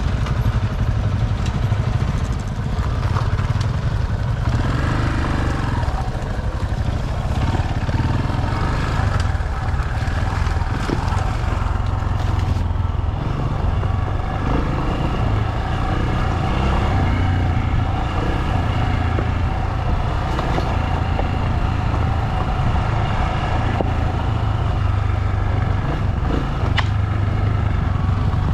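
Motorcycle engine running steadily on the move, with constant road and wind noise.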